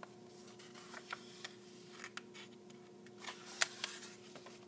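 Page of a hardcover picture book being turned by hand: soft paper rustling and a few sharp flicks of the page about three and a half seconds in, over a faint steady hum.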